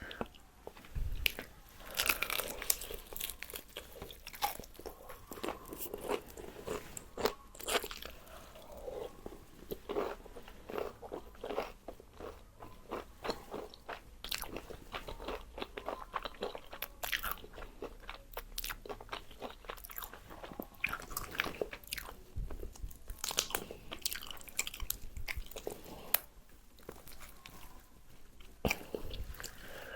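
Close-up eating sounds: crispy fried chicken bitten and chewed, the breaded crust crackling in quick, dense crunches throughout.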